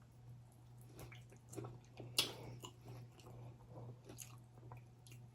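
Faint chewing and biting sounds of someone eating chicken wings, with scattered small mouth clicks and one sharper click about two seconds in, over a steady low hum.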